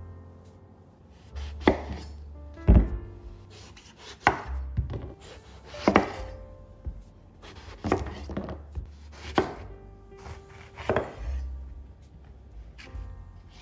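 Santoku knife slicing an eggplant into thick rounds, each cut ending in a sharp knock on a wooden cutting board, about seven cuts roughly a second and a half apart.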